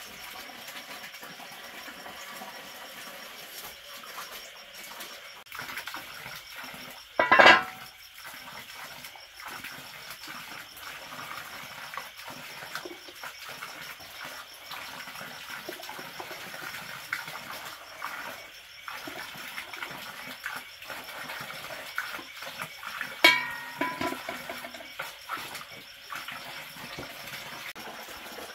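Hot water being scooped from a steaming pot into a plastic basin for a bath. Two short, loud sharp sounds stand out over it, one about seven seconds in and one a few seconds before the end; the second rings briefly.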